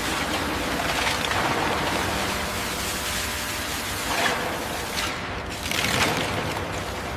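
High-pressure water jet blasting a rusted steel ship hull: a loud, steady hiss of spray that starts abruptly and swells briefly a few times.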